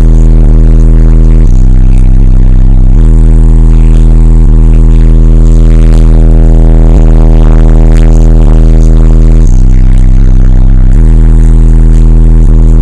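Bass-heavy music played at extreme volume through a car audio system of eight AudioQue 18-inch subwoofers on 10,000 watts of DC Audio amplifiers. Deep bass notes are held for a second or more at a time and shift pitch a few times, and the recording is overloaded into heavy distortion.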